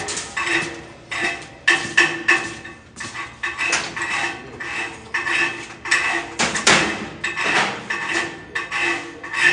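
Hammer blows on steel, about two a second, each one ringing.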